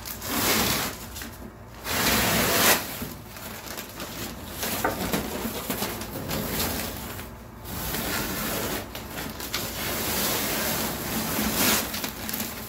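Clear plastic sheeting crackling and rustling as it is peeled off a freshly fiberglassed epoxy deck panel and bunched up by hand. The noise comes in uneven swells.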